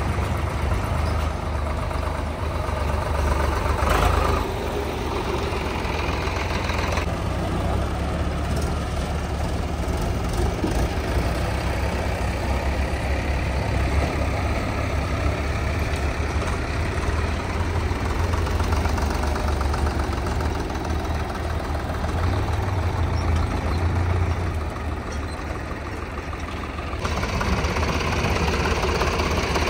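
Diesel engine of heavy farm or earthmoving machinery running steadily, with a short sharp knock about four seconds in; the sound grows fuller again near the end.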